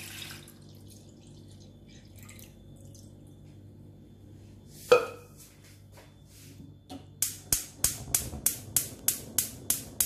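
Milk pouring into a stainless-steel saucepan at the start, then one loud, sharp knock about five seconds in. In the last three seconds, a gas hob's spark igniter clicks evenly about four times a second as the burner under the milk is lit.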